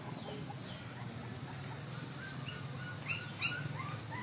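Puppies squeaking and whimpering in a quick run of short high cries, the two loudest a little after three seconds in, over a steady low hum.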